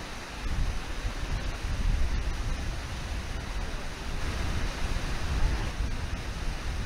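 Steady rush of a shallow, fast river pouring over a low waterfall, with wind rumbling on the microphone.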